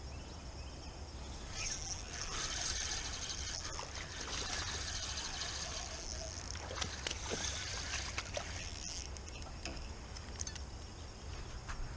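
A hooked largemouth bass splashing at the surface while a spinning reel is cranked to bring it in, from about a second and a half in until about nine seconds. Crickets and outdoor background noise run underneath.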